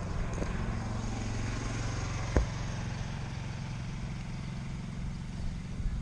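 A motor engine running steadily, with one sharp knock about two and a half seconds in.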